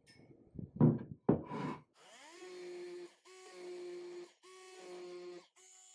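A couple of loud knocks. Then an electric detail sander starts with a rising whine and runs in short repeated bursts, stopping briefly about every second.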